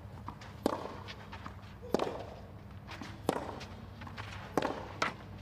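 Tennis rally: a tennis ball struck back and forth by rackets, five sharp hits mostly about 1.3 seconds apart, the last two close together near the end.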